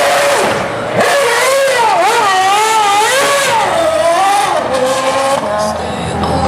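A Formula 1 car's engine revving up and down quickly while it spins donuts, with tyre squeal. The pitch swings rapidly for a few seconds and then settles.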